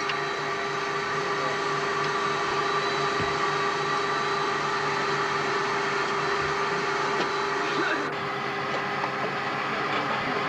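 Steady drone of a Tu-22 bomber heard from inside the cockpit: jet engine and onboard equipment noise, a constant hum with a few held whining tones over hiss. The hiss eases slightly about eight seconds in.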